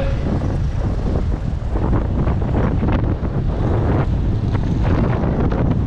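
Wind buffeting the microphone of a camera on a moving bicycle, a steady low rumble with short gusty crackles, mixed with road and street traffic noise.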